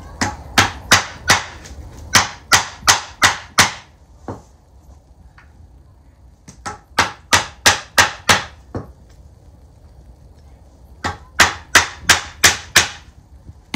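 Claw hammer driving long round wire nails into pallet-wood slats: several runs of sharp, evenly spaced blows, about three a second, with short pauses between runs as each nail is set.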